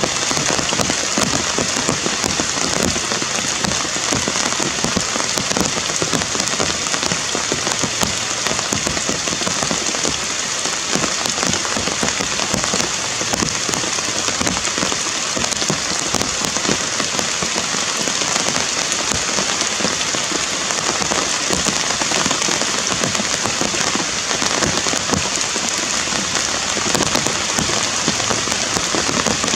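Steady rain falling on forest foliage, a dense, even patter of drops.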